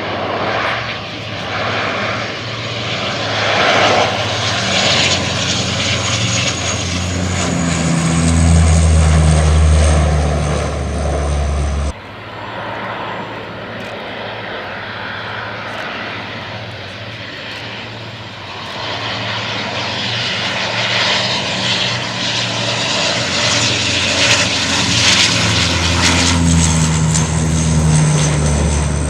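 Canadair CL-415 water bomber's twin Pratt & Whitney PW123AF turboprops running, with a deep propeller drone and a high turbine whine, growing louder as the aircraft passes close. It happens twice, with a sudden break about twelve seconds in.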